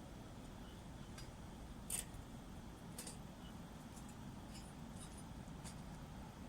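Small wood fire crackling, with a handful of sharp pops and snaps, the loudest about two seconds in, over a low steady background hum.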